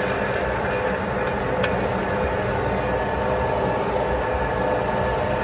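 Steady drone of running machinery with a constant hum, even in level throughout; a single light click about one and a half seconds in.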